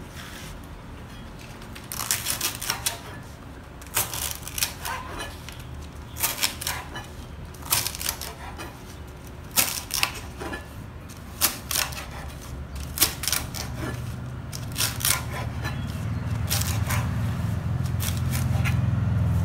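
Kitchen knife chopping pandan leaves on a plastic cutting board, in short runs of quick crisp strokes with pauses between them. A low hum grows louder toward the end.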